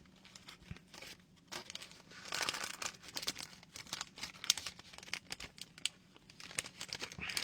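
Plastic packaging crinkling and rustling in the hands in irregular bursts.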